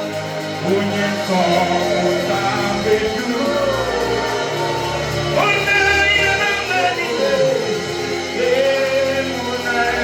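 Live gospel worship music: a band plays with a singer's voice carried over it in held, sliding notes.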